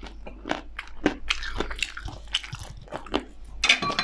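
Close-miked mouth sounds of biting and chewing chicken, with irregular crunchy crackles several times a second.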